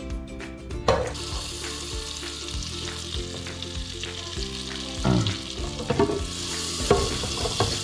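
Butter sizzling and spitting as it melts in a hot aluminium pot, the sizzle setting in about a second in, over quiet background music.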